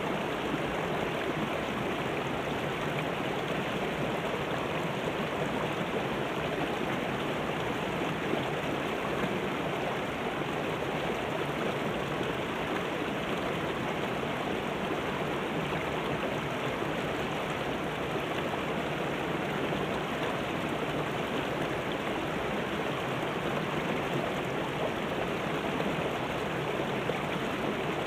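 Shallow rocky river rushing over boulders and small rapids: a steady, unbroken rush of water.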